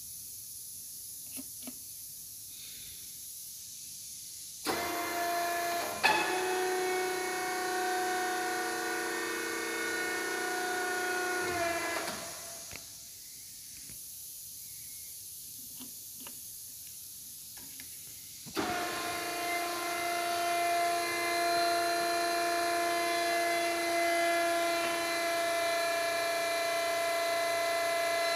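Electric motor of a Ferber warp beam truck whining steadily as its powered functions are run from the control panel. It starts suddenly about five seconds in, runs for about seven seconds and stops, then starts again later and runs on. A few faint clicks fall in the quiet gap.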